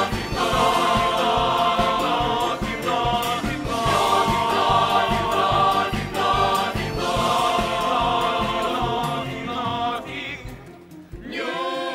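Musical theatre ensemble singing in chorus over a full band, a big company number. The music thins out and dips briefly near the end.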